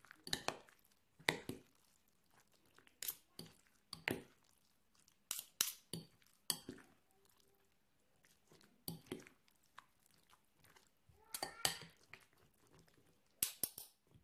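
A metal spoon clinks and scrapes against a cut-glass bowl while mixing a thick, mayonnaise-coated salad, with soft squelching. The knocks come in irregular clusters every second or two.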